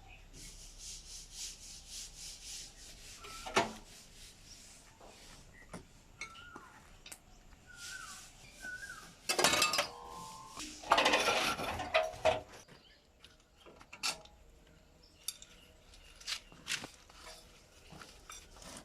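Hand work on metal parts: rhythmic rubbing strokes at first, then scattered clinks, knocks and short squeaks. Two louder hissing bursts come about halfway through.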